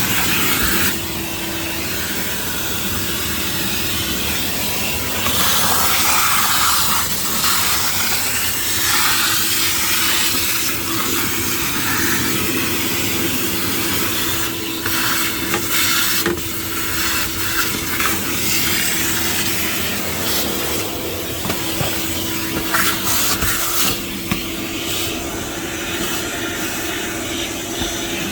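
Shop-Vac wet/dry vacuum running with a steady motor whine and rushing air, the suction sound changing in strength as the nozzle moves, with scattered sharp clicks and knocks.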